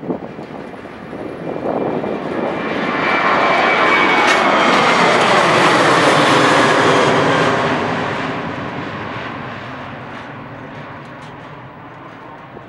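Boeing 737-800's twin CFM56-7B turbofan engines at takeoff thrust as the airliner lifts off and climbs overhead. The jet noise builds to its loudest about six seconds in, its tones gliding down in pitch as it passes, then fades as it climbs away.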